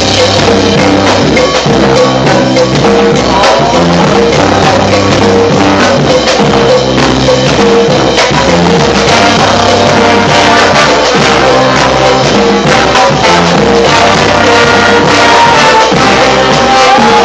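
Loud music playing throughout, with a bass line and steady rhythmic percussion.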